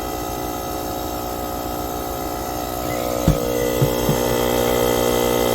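AUTDER cordless tyre inflator's compressor running steadily with a constant hum, with a few short knocks a little over three seconds in.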